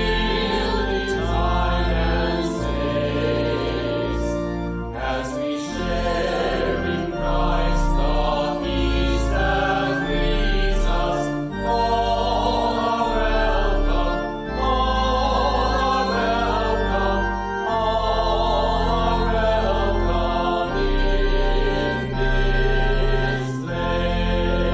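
A choir singing a church hymn over instrumental accompaniment, with held low bass notes changing every few seconds.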